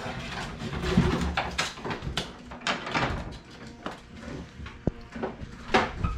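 Irregular knocks and clicks, as of hard objects being handled and set down.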